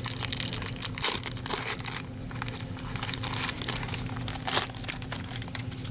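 Wax paper wrapper of a trading-card pack being torn open and crinkled, crackling most densely in the first two seconds, then scattered crinkles.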